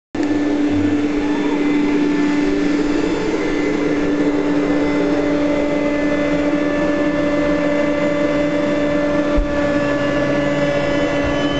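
Vacuum cleaner running steadily: a loud, even whine of its motor over the rush of air.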